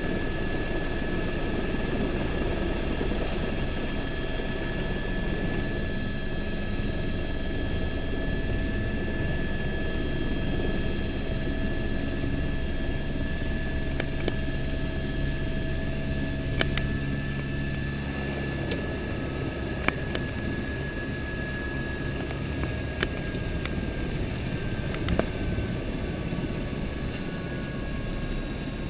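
Turbine helicopter's engine and rotor heard from inside the cabin while it sets down and runs on the pad: a steady whine over a low rumble. In the second half the rumble eases and the whine drifts slightly lower, with a few sharp clicks.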